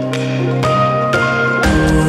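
Background music: held chords and a light, plucked-sounding melody over a steady beat of about two strikes a second, with a deep bass coming in near the end.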